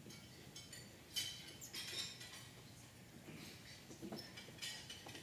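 Faint clinks of cutlery and dishes, a few short light knocks, over the low hum of a quiet dining room.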